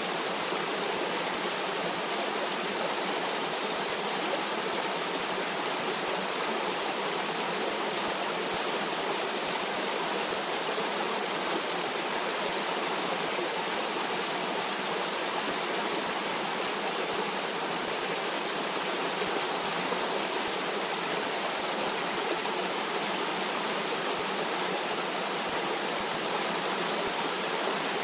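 A stream of water flowing and rushing steadily, a constant even wash of water noise with no changes.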